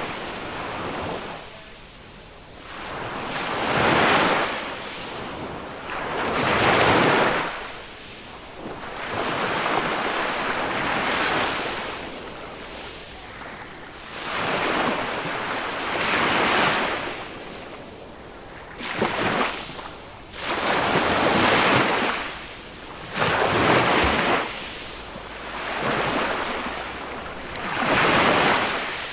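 Small waves breaking and washing up on a sandy beach, the surf swelling and falling away every two to three seconds, with some wind on the microphone.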